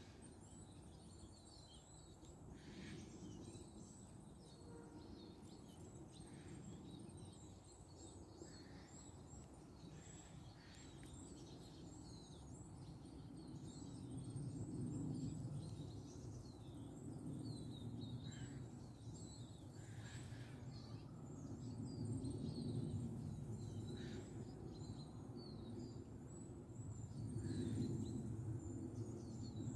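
Many small songbirds chirping and trilling in a forest: a steady stream of short, high calls overlapping one another. Beneath them is a low rumbling background that swells louder several times.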